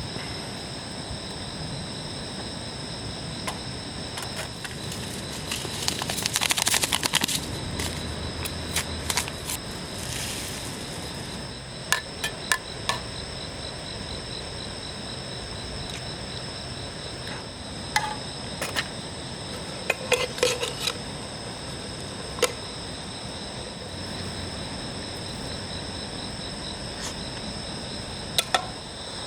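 Insects singing steadily in several high, unbroken tones. Scattered sharp clicks and knocks cut through it, with a brief rustling burst about six to seven seconds in.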